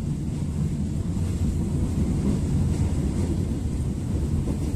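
Steady low rumble of a moving passenger train heard from inside the carriage: the wheels running on the rails and the coach's running noise.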